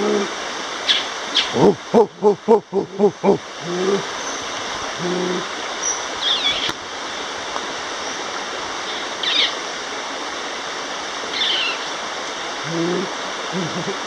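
A river rushing steadily in the background. About two seconds in comes a quick run of about seven short low calls, the loudest sound here, and a few short high bird chirps come and go.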